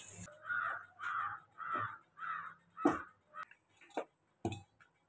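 A crow cawing four times in quick succession, then about four sharp clanks as a stainless-steel cooking pot is picked up and set down on the counter, the first clank the loudest.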